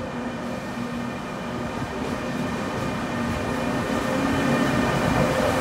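E402B electric locomotive passing close by on the platform track, running with a steady electric hum and several whining tones over a rumble that grows louder as it draws alongside.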